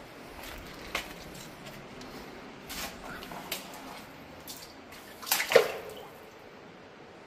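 Scattered sharp taps and knocks in a rock cave passage, a few single ones and then a louder cluster of knocks about five and a half seconds in.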